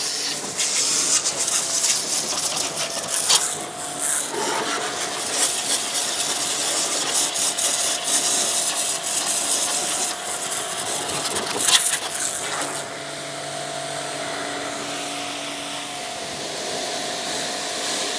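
Electric high-pressure washer (QPT Q5, 2500 W) spraying a hard jet of water onto a muddy car wheel arch and mudflap: a loud, steady hiss with a faint steady whine underneath. About 13 seconds in the spray turns quieter and duller.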